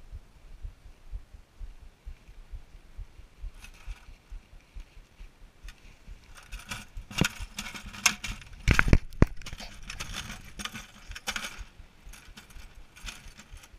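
Knocks, scrapes and splashes from a caught rainbow trout being handled in a plastic bucket of water, with the line and metal spinner lure clinking. The handling comes in irregular bursts, loudest with a few sharp thumps about eight to nine seconds in; low wind rumble on the microphone beforehand.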